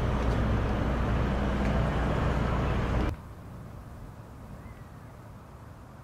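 Steady low engine drone over a wash of noise, cutting off suddenly about three seconds in. After that, quiet outdoor background with one faint short chirp.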